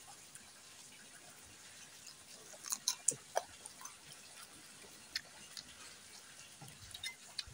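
Close, quiet eating sounds of instant fried noodles being slurped and chewed, with small wet clicks and mouth noises, clustered about three seconds in.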